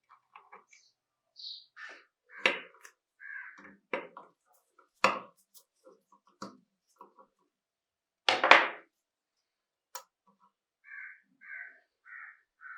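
Scattered clicks and knocks of tools and small metal parts being handled on a workbench during disassembly of a rusted pistol. There is a louder knock or scrape about eight seconds in, and four short squeaks about half a second apart near the end.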